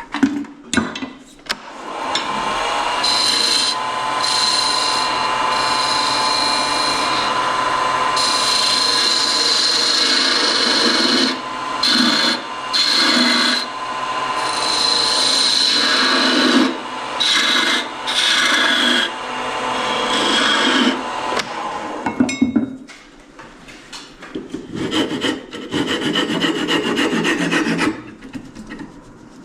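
Turning tool cutting a small wooden knob spinning on a Laguna wood lathe: a steady scraping hiss with a high whine, in repeated light passes that break off briefly several times as the tool lifts away, then a shorter pass near the end.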